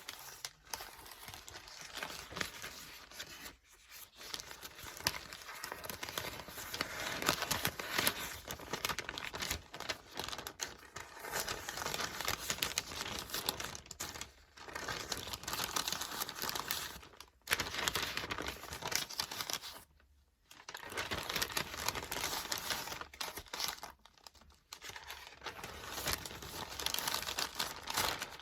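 Book pages being flipped and turned: dense papery rustling and crackling, broken by a few short pauses.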